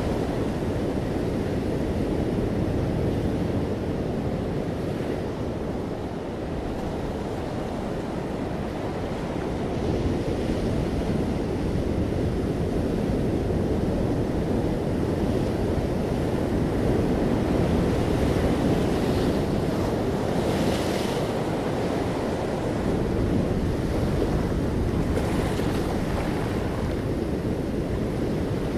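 Ocean waves breaking and washing on a shore: a continuous low rush that swells and ebbs slowly, with a few brief hissing surges of surf.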